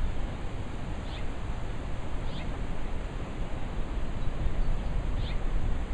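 Gusty wind rumbling on the microphone and rustling tree leaves ahead of a thunderstorm, with a bird giving a short falling call three times.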